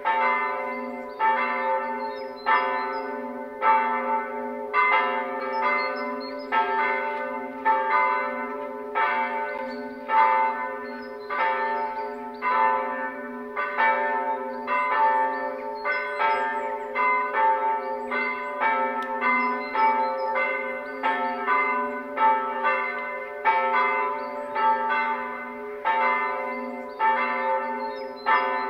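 Church bells ringing a continuous, uneven peal, with strikes about twice a second over a low hum that lingers between them: the bells calling people to the service.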